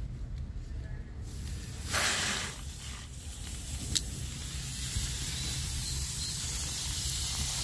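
Irrigation valve opened by hand at the valve box: water starts to hiss through the line about a second in, with a short rush about two seconds in, then builds into the steady hiss of the new sprinkler heads spraying.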